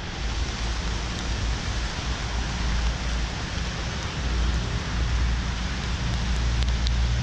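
Wind buffeting an action camera's microphone in a low, rising-and-falling rumble, over a steady hiss of wind and rain.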